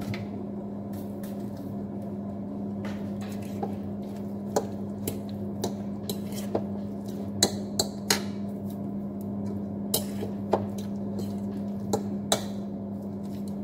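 A utensil clinking and scraping against a ceramic bowl while a chopped cauliflower and egg mixture is stirred, in irregular sharp clinks. A steady low hum runs underneath.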